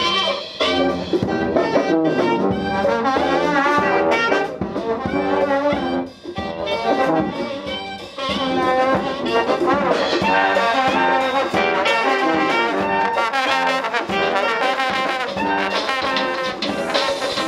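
Brass band playing live: trombone and saxophone over drum kit and bass drum, with short breaks in the playing about six and eight seconds in.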